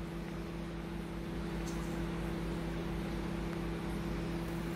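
Steady low electrical hum over a faint hiss, with no change in level.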